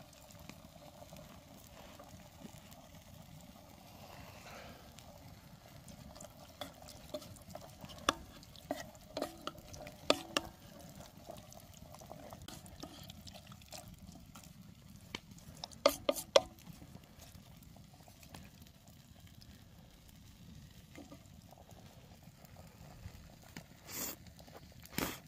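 Camp cooking sounds: a metal utensil stirring and clinking in a pot, scattered sharp clicks with louder clusters about ten and sixteen seconds in, over a faint steady hiss.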